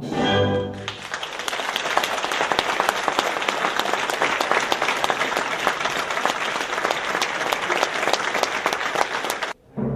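Theatre audience applauding: a dense, even clatter of many hands clapping, which starts as the orchestra's last chord dies away. The applause cuts off suddenly about half a second before the end, and orchestral music starts again.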